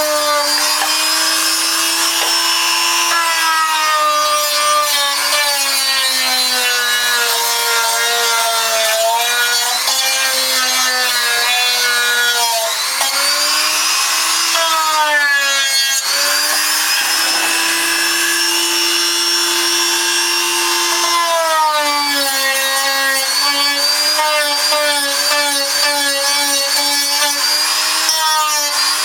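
Small electric power tool running continuously while working wood. Its motor whine sags in pitch and recovers several times as it takes load, over a steady scraping hiss.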